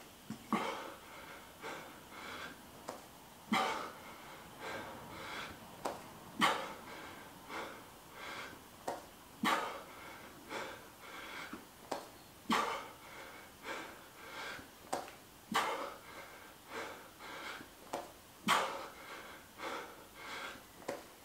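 A man breathing hard and rhythmically through push-ups late in a 100-rep set. A sharp, forceful exhale comes about every three seconds, one per push-up, with quicker, lighter breaths in between: the sound of heavy exertion.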